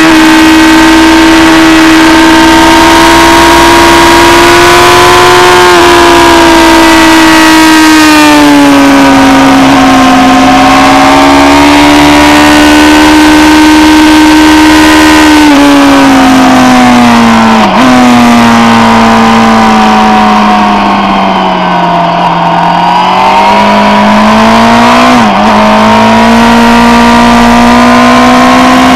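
Suzuki GSX-R sportbike's inline-four engine running hard at high revs, heard onboard with wind rushing over the bike. The engine pitch rises and falls through the corners, dips sharply for an instant twice, and sinks lower about two-thirds through before climbing again.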